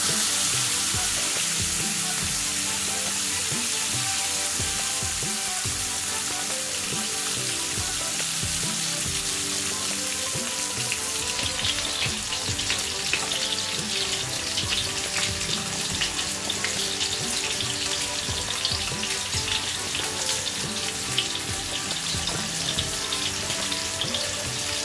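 Whole spice-marinated sea bream frying in hot olive oil in a pan: a steady sizzling hiss that turns crackly, with spattering oil, from about eleven seconds in.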